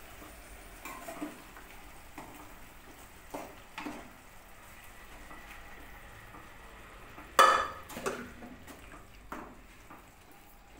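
Steel spoon stirring chickpea curry (chole masala) in a non-stick kadai, with scattered clinks and scrapes against the pan and one loud clack about seven seconds in.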